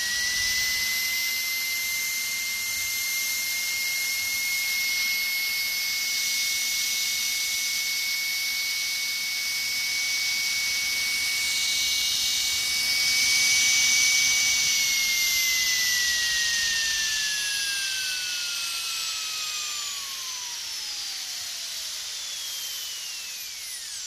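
Dentist's drill running at a steady high-pitched whine over a hiss. The hiss swells about halfway through, and over the last several seconds the whine slides down in pitch as the drill winds down.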